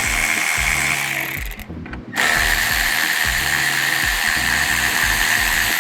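Power driver spinning a 10 mm socket to back out screws: a steady high whine that stops about one and a half seconds in, then starts again a moment later at a slightly lower pitch.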